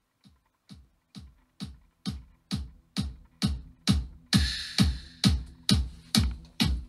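Electronic dance track with a deep kick drum about two beats a second, played through a homemade TDA7294 bridged amplifier and speakers as a bass test. It grows steadily louder as the volume is turned up, and a bright hi-hat layer comes in about two-thirds of the way through.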